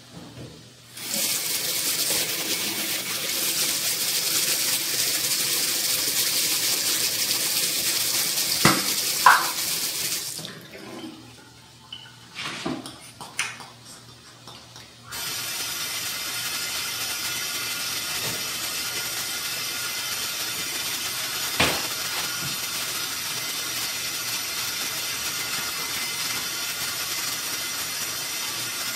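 Bathroom sink tap running in a steady hiss, shut off about ten seconds in; a few sharp knocks follow, then from about fifteen seconds in a softer steady hiss runs on.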